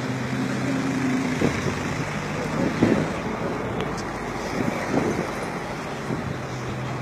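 A moving vehicle heard from its open back: an engine hums steadily, then about a second in, rushing wind and road noise take over, with a few short knocks.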